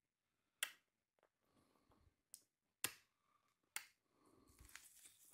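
A few sharp, brief clicks and fainter ticks from hand work with a plastic squeeze bottle of leather glue and a wooden stick, spread over about three seconds in near silence.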